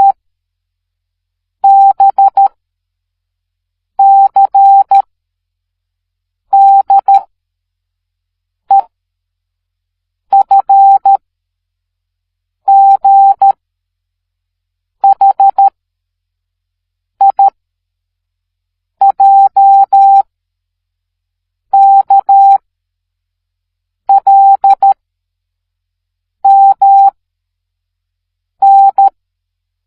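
Morse code sent as beeps of a single steady mid-pitched tone, one short group of dots and dashes about every two seconds. The groups follow the alphabet letter by letter, from B to M, with E a single short dot.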